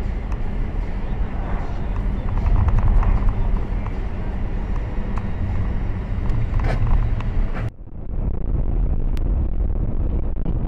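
Road and engine rumble heard from a car's dashcam while driving, steady and loud, with a few faint clicks. About eight seconds in the sound changes abruptly: the hiss drops away and a different, lower rumble carries on.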